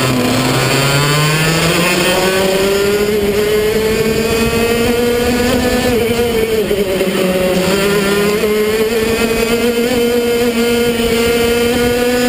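Racing kart engine at full race pace, heard from on board. Its pitch climbs over the first few seconds, drops briefly about six seconds in as the driver comes off the throttle, then climbs again and holds high.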